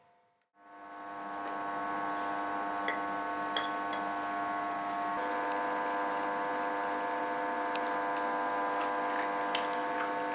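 A steady hum of several held tones fades in after a brief silence, with a few faint ticks over it.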